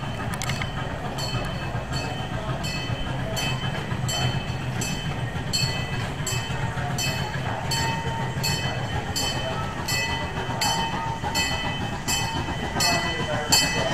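A steady low mechanical rumble with a regular clacking beat about twice a second.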